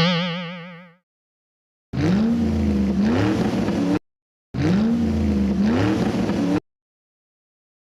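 A cartoon boing sound effect fading out over the first second, then a car engine revving sound effect played twice, each about two seconds long, starting and stopping abruptly with silence between.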